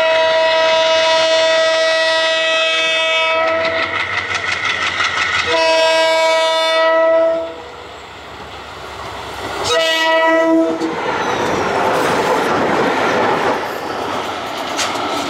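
Diesel locomotive horn sounding a long blast, a second shorter blast about five and a half seconds in and a brief third near ten seconds, then the rushing rumble and clickety-clack of passenger coaches passing close.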